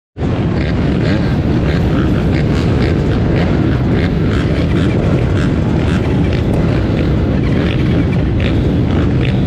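A pack of motocross dirt bikes running together at the start line, engines idling while waiting for the start, the onboard bike's own engine nearest. The sound is loud and steady throughout.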